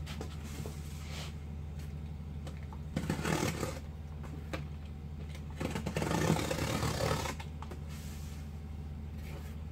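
A knife scoring cardboard along a straight edge: two scraping strokes, a short one about three seconds in and a longer one at about six seconds, over a steady low hum.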